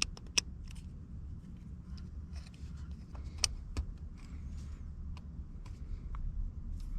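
Scattered sharp clicks and taps of things being handled in a car, over a low steady rumble.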